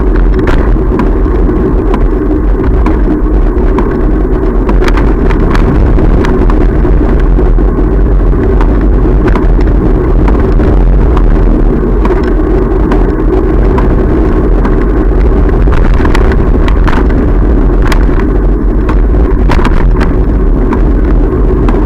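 Wind buffeting the microphone of a camera on a moving bicycle, a loud steady low rumble, with scattered short clicks and rattles from the bike and its mount going over the road surface.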